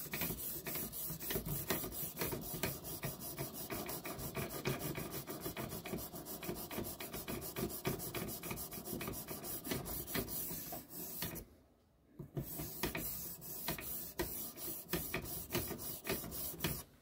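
Quick, repeated strokes of a 3000-grit sharpening stone on a guided-rod jig, scraping along the edge of a clamped Cold Steel Leatherneck tanto knife's D2 steel blade to refine the edge. There is a brief pause about two-thirds of the way in.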